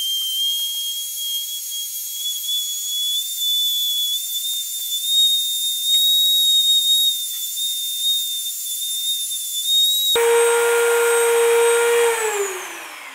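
Handheld rotary tool running at high speed with a loud high-pitched whine as a small sanding bit grinds the end of a steel coil spring. About ten seconds in the whine gives way to a lower hum, which falls steadily in pitch near the end as the tool winds down.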